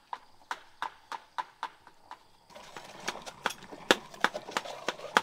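Sharp knocks at a steady beat of about three to four a second, coming quicker in the second half. About halfway through, a steady rushing sound of running liquid joins them.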